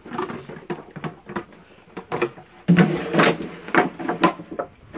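A thin plastic bucket knocking, clattering and scraping against wooden deck boards as a Bernese Mountain Dog mouths and shoves it. The knocks come in a rapid irregular series, sparse at first and much louder and busier from about halfway through.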